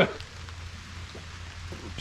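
Light patter of water dripping off wet trees after rain, a few faint drops ticking over a steady low hum.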